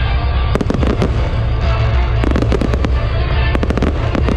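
Aerial fireworks bursting in three quick clusters of sharp bangs and crackles, over loud music with heavy bass.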